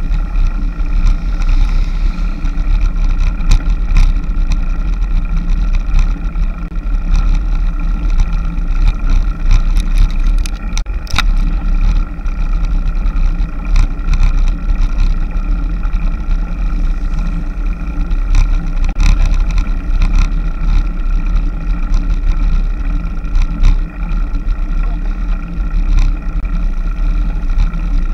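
Steady wind rumble and road noise on a camera carried on a moving road bike, with scattered clicks and knocks from bumps in the road.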